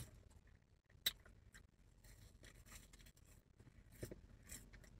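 Near silence with faint chewing and mouth clicks, one sharper click about a second in.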